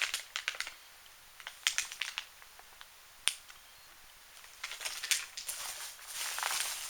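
Plastic parts bags and packaging being handled: scattered crinkles and light clicks, with one sharp click about three seconds in and denser crinkling over the last couple of seconds.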